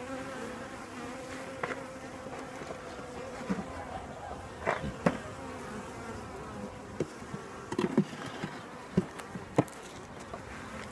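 Honey bees buzzing around an open hive in a steady hum, with scattered light knocks of wooden hive frames being handled and set in.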